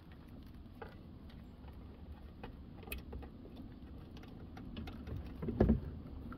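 Quiet handling noise of a wiring-harness connector being plugged back into the back of a car radio: small scattered clicks and rustles, with a louder clatter about five and a half seconds in.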